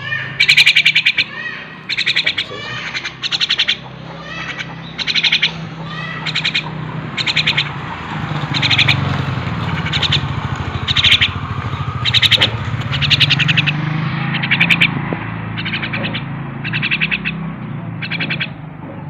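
Javan myna giving harsh, buzzy squawking calls, repeated roughly once a second, over a steady low hum.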